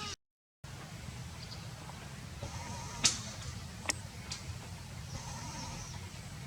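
Two faint, wavering animal calls over a steady low rumble, with a few sharp clicks in the middle, the loudest about three seconds in.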